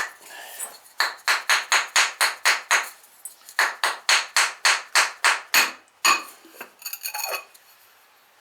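Two quick runs of sharp knocks, about four a second, as glazed pots stuck to the kiln shelf after a glaze firing are banged loose, then a few ringing clinks of fired pottery near the end.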